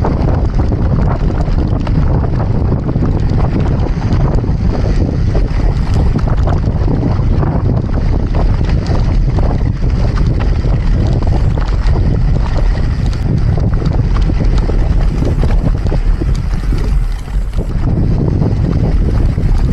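Heavy wind buffeting the camera microphone, loud and continuous, with many small knocks mixed in.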